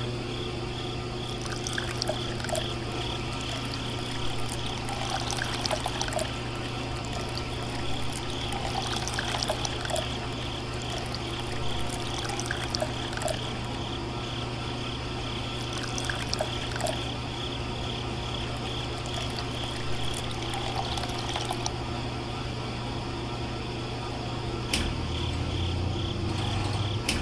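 Small electric motor humming steadily after a rocker switch is flipped on, with water pouring and trickling from a plastic pipe onto sand. Near the end a switch clicks and the hum drops lower.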